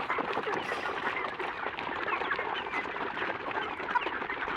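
A flock of chickens clucking and chirping together at feeding time, many short calls overlapping.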